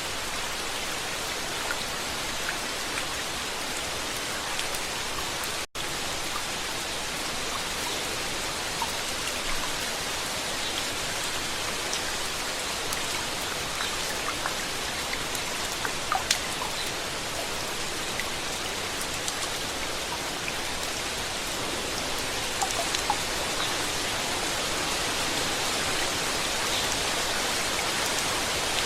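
Steady rainfall, an even hiss with scattered individual drops ticking through it. The sound drops out for an instant about six seconds in.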